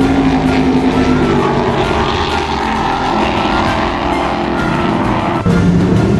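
High-performance powerboat engines running at speed, the engine note sinking slowly in pitch as the boat passes. About five and a half seconds in, the sound changes abruptly to another boat's louder, lower, steady engine note.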